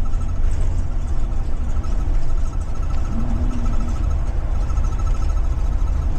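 Ford 7.3 litre V8 of a 2023 Blue Bird Vision school bus running under way, heard from inside the cab: a steady, deep engine and road rumble.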